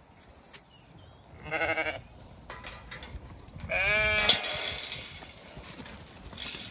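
Zwartbles sheep bleating twice: a short bleat about a second and a half in, then a louder, wavering bleat near the middle. A sharp metallic clank of the metal gate's latch comes at the end of the second bleat.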